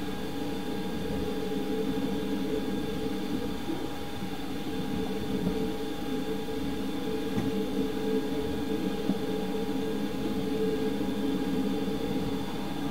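Running noise inside a 24-series sleeper coach of the Hokutosei express moving at speed: a steady rumble of wheels on rail under a constant hum. A few faint knocks come through now and then.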